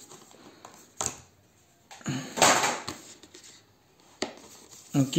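Cardboard box packaging being handled: a tap about a second in, a short scraping slide as a cardboard insert is moved around two seconds in, and another click near the end.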